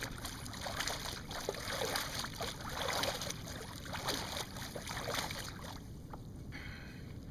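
Water splashing and dripping, with irregular knocks and rustles from a landing net being handled while a freshly caught coho salmon hangs in it beside a kayak. The busy handling noise dies down about six seconds in.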